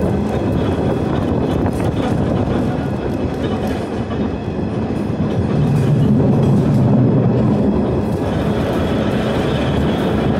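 A streetcar running along its track: a continuous rumble of steel wheels on the rails. A low hum swells about halfway through.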